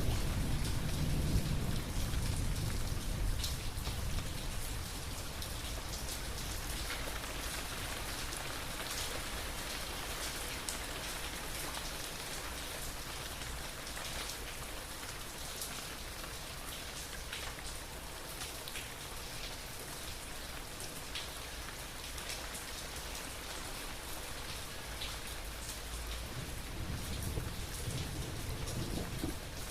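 Steady heavy rain falling, with single close drops standing out now and then. A low rumble of thunder dies away over the first few seconds, and another rumble of thunder builds near the end.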